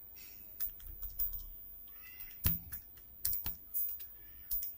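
Keys of a scientific calculator being pressed to enter a calculation: about a dozen sharp, irregular clicks, the loudest about halfway through.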